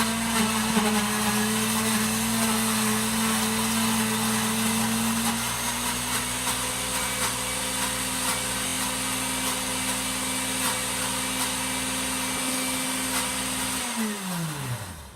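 Electric kitchen blender running steadily while it blends a peeled banana. Its motor note steps up a little about five seconds in, and near the end it is switched off and spins down with a falling pitch.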